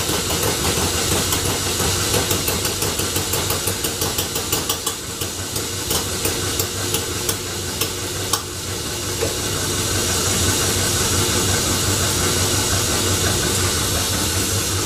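Homemade Scotch yoke engine being turned over by a belt from a motor, with rapid, irregular sharp pops as it tries to fire; about eight seconds in the pops stop and only the steady drone of the belt-driven engine goes on. It tries to run but never takes over from the belt, which the builder puts down mostly to timing and carburetion.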